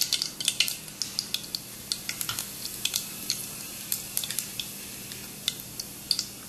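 Mustard and cumin seeds sizzling in hot oil, with many sharp pops as the mustard seeds splutter, thickest in the first three seconds and thinning out after. The popping is the sign that the oil is hot and the seeds are done, the tempering stage of the dish.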